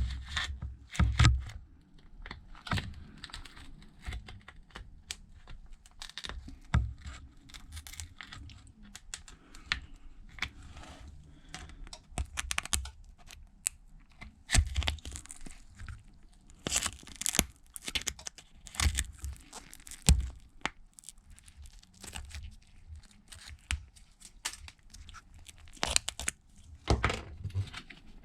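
Irregular crackling, clicks and tearing as a pry tool is worked under the shattered screen of an iPad Pro 12.9 (3rd gen): broken glass cracking and screen adhesive, softened with heat and alcohol, pulling loose. Louder clusters of crackles come now and then among quieter scraping.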